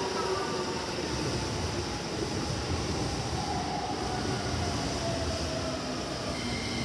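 Electric commuter train running through the station: a steady rumble of wheels on the rails, with the whine of its traction motors gliding in pitch.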